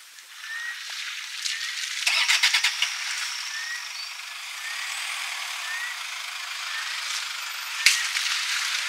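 African elephant splashing and spraying water with its trunk in a waterhole: a steady watery hiss, with a burst of rattly splashing about two seconds in and a single sharp splash near the end.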